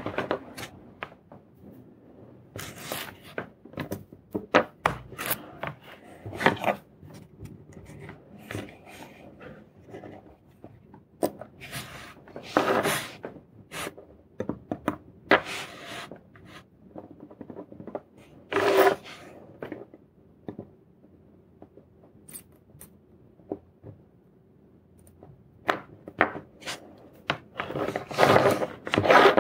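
Irregular small clicks, taps and scrapes of metal tweezers and a soldering iron tip against a circuit board and wooden tabletop, as a small chip is positioned and soldered in place. A few longer scraping rustles stand out among the clicks.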